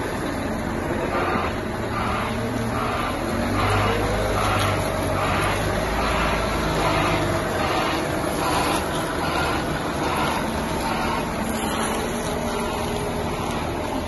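Volvo L150H wheel loader's six-cylinder diesel engine running steadily at idle. A regular pulsing sound of about two a second runs through most of it.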